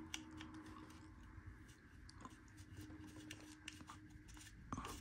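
Faint clicks and scrapes of a small screwdriver turning a screw out of a plastic display base.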